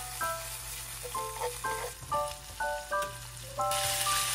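Shredded meat sizzling as it is stir-fried in chili oil in a nonstick pan, with background music of short melodic notes. The sizzle turns much louder near the end as sliced peppers and other vegetables go into the hot pan.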